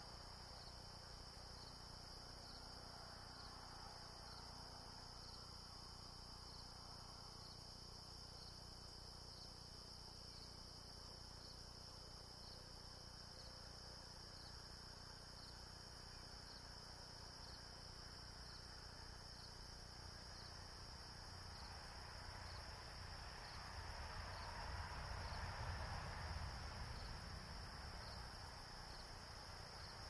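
Evening chorus of crickets, a steady high evenly pulsing trill. A low rushing sound swells and fades about three quarters of the way through.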